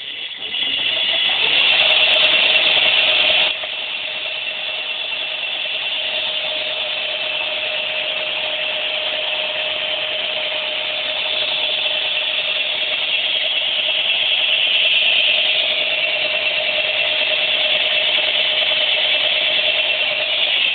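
48-volt, 1000-watt electric motor on a homemade quadracycle running under throttle, a steady whine with a hissing drive noise. It is loudest for the first few seconds, then eases a little after about three and a half seconds and runs on steadily.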